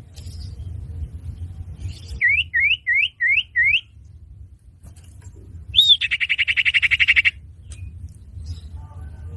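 Common iora (cipoh) calling: five quick rising whistled notes about two seconds in, then a rising note and a fast buzzy trill about six seconds in. A steady low rumble runs underneath.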